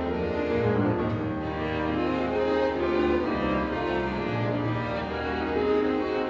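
Live small ensemble of violin, clarinet, double bass, piano and drum kit playing an instrumental passage, with sustained notes over a moving bass line.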